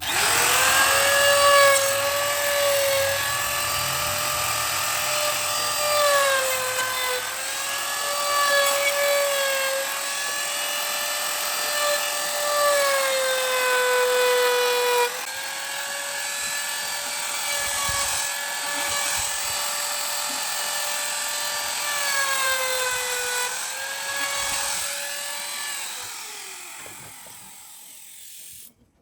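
A high-speed electric power tool starts suddenly and runs with a steady whine. Its pitch dips briefly several times, as when the tool takes a load. Near the end it slows with a falling pitch and stops.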